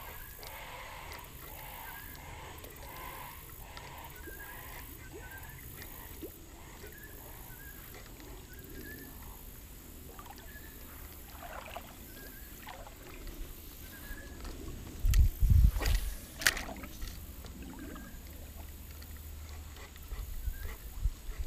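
An animal calling over and over in short repeated notes, a noise the angler could not identify. A few loud thumps and sharp knocks come about 15 seconds in, with more thumping near the end.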